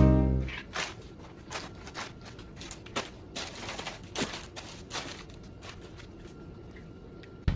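Background music fading out, then faint footsteps and scattered light taps and knocks in a kitchen.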